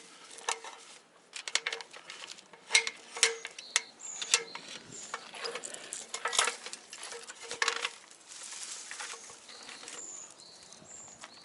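Irregular metallic clicks and rattles of tree-climbing rope hardware being handled, with some rustling partway through and short high bird chirps in the background.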